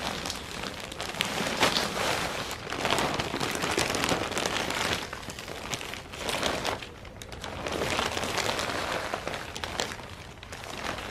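Plastic potting-mix bag crinkling and rustling as it is shaken out, with loose potting soil pouring into a tub. The sound swells and eases in waves every second or two as the bag is tipped and shaken.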